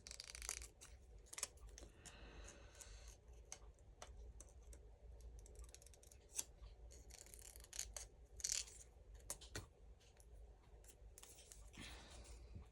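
Scissors faintly snipping paper, with irregular short cuts and clicks while fussy-cutting around a printed image.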